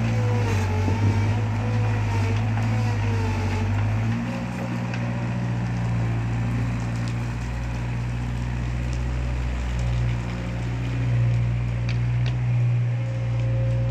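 Skid steer loader's diesel engine running under load as the machine works a pile of rock and soil, its engine note shifting about four seconds in and again near ten seconds.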